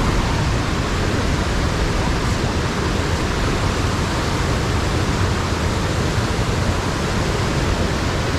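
Fast river water rushing over rocks in a wooded gorge below a waterfall: a loud, steady, unbroken rush of water.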